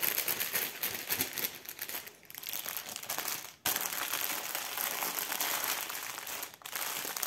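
Clear plastic bags crinkling and rustling as small zip bags of diamond-painting drills are handled and packed into a larger plastic bag, broken by a few brief pauses.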